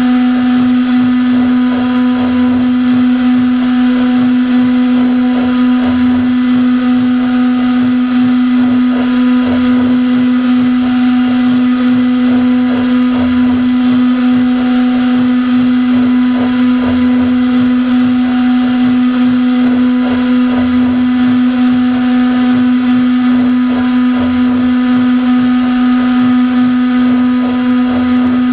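CNC router spindle running at a steady high pitch with a row of fainter overtones above it while it mills foam, with faint uneven low rumbling underneath.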